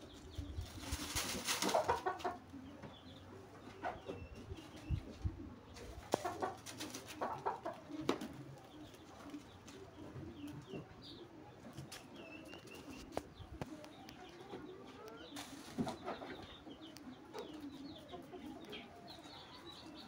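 Pigeons cooing steadily in the background, with short high bird chirps. There are scattered clicks and a loud rustle about a second in.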